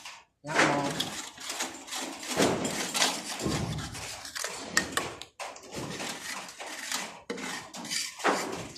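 Irregular clattering and scraping of hard objects, with scattered knocks.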